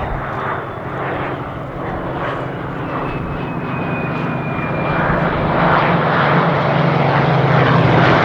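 Spitfire's V12 piston engine running and growing steadily louder as it comes closer, with a faint high whine that slides slowly down in pitch midway through.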